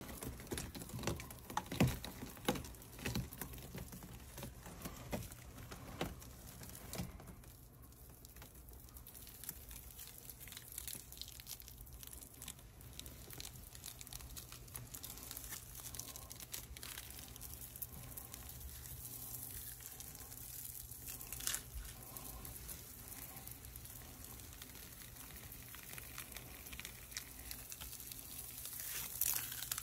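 Dry shed snake skin crinkling and crackling as it is peeled off the snake by hand, with a dense run of sharp crackles over the first several seconds and softer, sparser rustling after. A faint steady low hum lies underneath.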